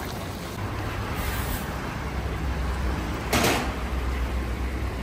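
Steady hiss and low rumble of a large kazan of plov cooking, its layer of carrots steaming. About three and a half seconds in there is one short, loud rush as a heap of small dark grains is tipped onto the middle of the carrots.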